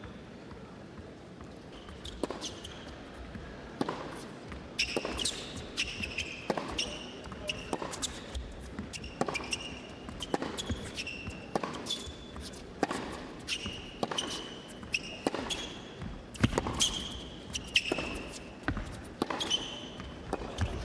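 Tennis rally: racket strikes on the ball trading back and forth, with players' shoes squeaking on the court between shots. The strokes begin about two seconds in.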